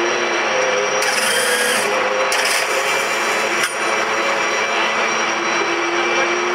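A handheld starter whirring in two short runs at the rear of a Champ Car, ending in a click, over a steady loud drone of pit-lane engines and equipment.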